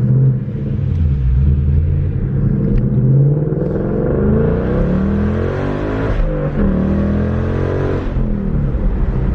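2017 Mustang GT's 5.0-litre V8 through a Borla ATAK cat-back exhaust, pulling under acceleration. The note rises in pitch, drops sharply at a gear change about six seconds in, then rises again before easing off.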